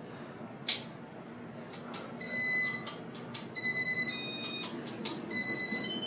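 Electronic beeps from the first-generation Casablanca Inteli-Touch fan control as the fan is put through its demo mode: three steady half-second beeps, a second and a half or so apart, with a few light clicks between them.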